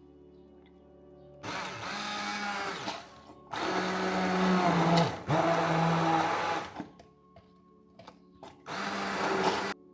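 Electric kitchen blender run in four short pulses, its motor pitch dipping under the load and picking back up, as greens are blended into a juice shot.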